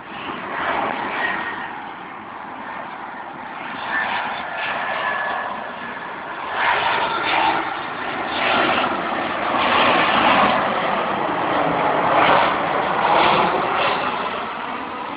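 Jet engine noise from an Airbus A320 airliner landing: a steady rushing roar that swells in surges to its loudest in the last few seconds.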